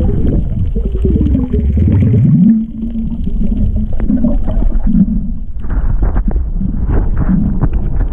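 Muffled underwater sound through an action camera's waterproof housing: a heavy low rumble of water moving past, with a tone that rises in pitch over the first two seconds and then holds, followed by a few short low hums.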